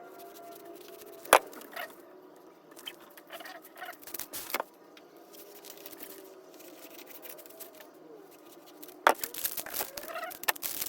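Paper and tape being handled while party favors are assembled: a few sharp taps and clicks, then busier rustling and crinkling near the end, over faint background music.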